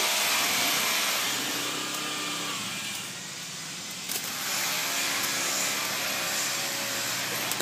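Steady street traffic noise, with motor vehicles running and passing.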